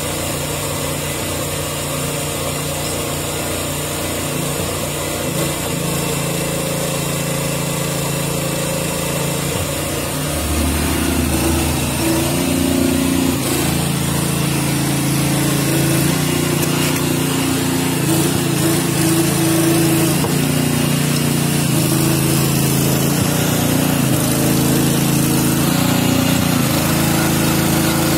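A small engine running steadily, getting louder about ten seconds in and then holding with a slightly wavering pitch.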